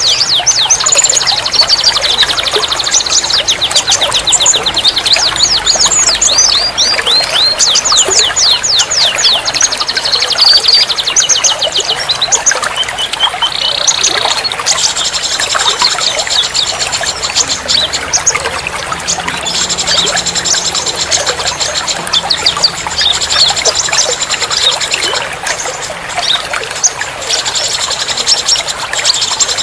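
Songbird singing rapid runs of quick, downward-sweeping chirps and trills over a steady sound of trickling, running water. It is a birdsong-and-water therapy track meant to get caged birds that have stopped singing to sing again.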